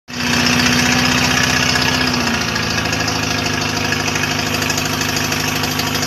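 Toyota 3K four-cylinder engine idling with a pinging from a deteriorated spark plug that needs replacing. The note changes and grows slightly quieter about two seconds in.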